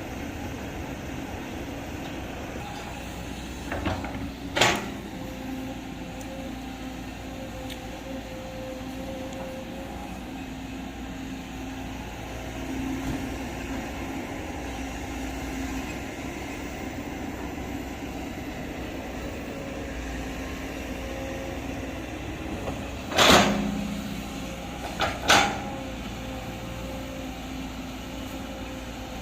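Hydraulic excavator running steadily under work, its engine and hydraulics giving a constant hum with a faint whine. Three sharp metallic clanks stand out, one a few seconds in and two close together near the end.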